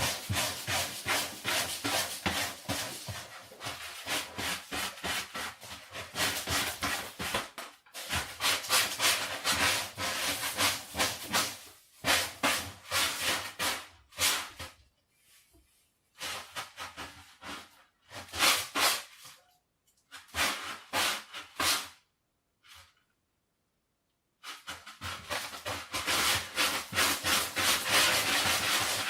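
Cat scratching and digging in sand litter in a plastic litter box: quick runs of scraping strokes in bouts of several seconds, with brief pauses between them.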